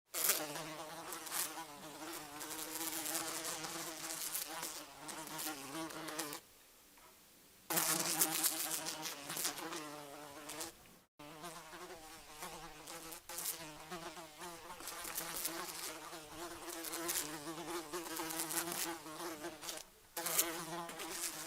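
A fly buzzing in flight, a steady hum that wavers gently in pitch. It drops away for about a second a third of the way in, and cuts out for an instant about halfway through.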